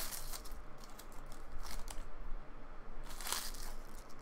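A foil trading-card pack wrapper crinkling in short bursts as it is torn open by hand and the cards are pulled out.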